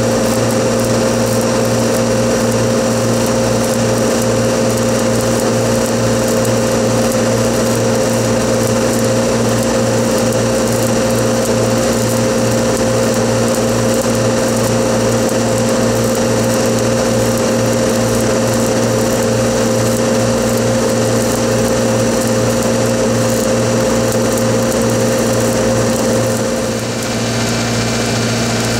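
Stick (shielded metal arc) welding on a pipeline joint: the arc crackles and hisses steadily with an engine-driven welding machine humming underneath. Near the end one part of the hum drops out and the level dips briefly.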